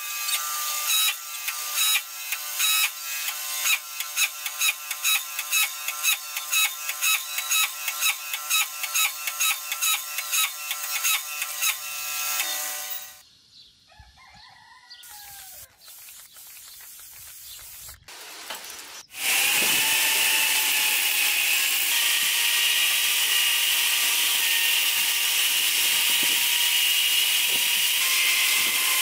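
Power hammer striking hot steel between flat dies in rapid, ringing blows, about three a second, for roughly the first half. After a quieter pause, a steady high-pitched grinder whine starts as steel is ground and throws sparks.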